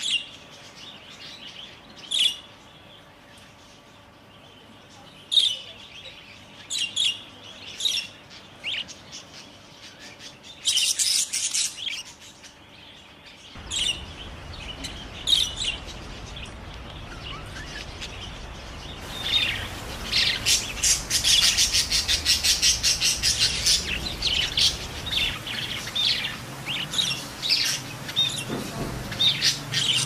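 Budgerigars chirping: single sharp chirps a second or two apart at first, then from about two-thirds of the way in a dense, rapid chattering warble.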